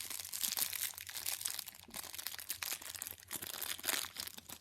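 Crinkly plastic packaging of a small mochi squishy toy being handled and pulled open, an irregular run of crackles and rustles.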